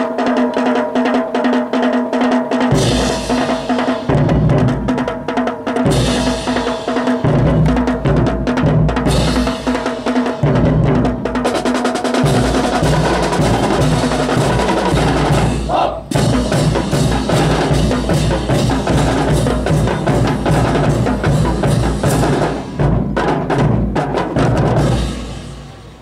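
Marching drum line playing a fast, driving rhythm on snare and bass drums over held musical tones. It fades out about a second before the end.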